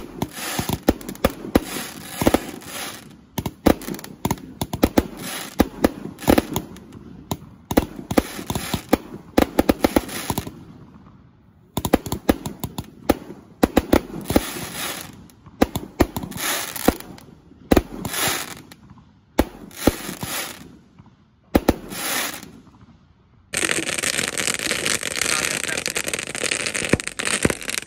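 Ten 1.2-inch roman candles firing together: a rapid, irregular string of launch thumps and popping bursts, with a few brief lulls. Near the end it gives way to a steady loud hiss.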